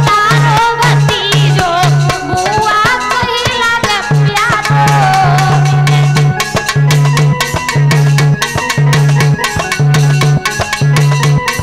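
Live Indian folk dance music: an electronic keyboard melody over a fast, steady hand-drum beat. The melody wavers and glides in the first few seconds, then settles into held notes.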